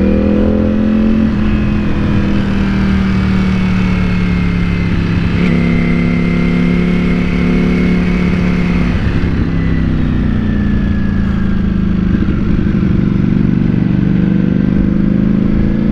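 Ducati Panigale V4 S's V4 engine running steadily at part throttle in fourth gear, heard from the rider's seat. Its pitch steps up about five seconds in, sags around ten seconds, and rises again near twelve seconds as the throttle is eased and reapplied through the corners.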